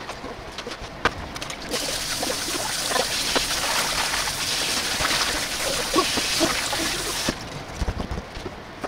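Kitchen tap running into a colander of water in a stainless-steel sink while potatoes are scrubbed by hand. The water starts about two seconds in and shuts off suddenly a little before the end, with small clicks and knocks before and after.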